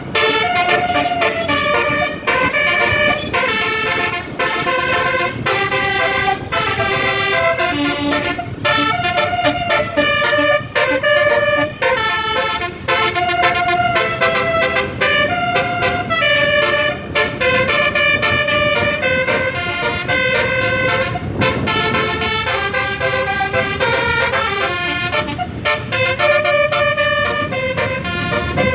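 Bus 'telolet basuri' musical air horns playing a melody: held horn notes stepping up and down in pitch, several horn trumpets sounding together, with a few brief breaks between phrases.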